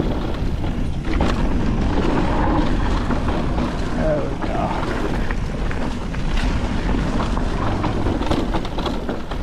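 Wind rushing over the microphone and mountain bike tyres rolling on a dirt trail on a fast descent, with the bike's frequent short knocks and rattles over the rough ground.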